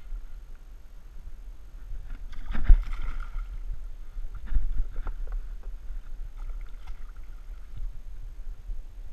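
A hooked pike thrashing and splashing at the water's surface beside the boat. The splashing is loudest at about two and a half to three seconds in, with a second splash a couple of seconds later, over a steady low rumble.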